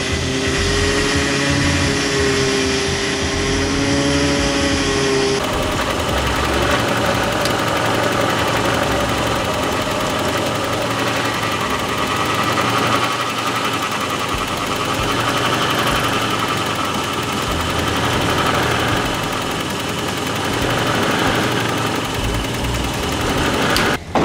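1987 Toyota 4Runner's 22RE four-cylinder engine running at idle, freshly started after a steering box and power steering line replacement. A steady whining tone sits over it for the first five seconds or so.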